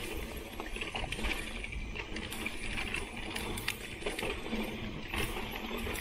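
Mountain bike rolling downhill over leaf-strewn dirt singletrack: tyres crunching through dry leaves, with frequent clicks and rattles from the bike's chain and parts over bumps.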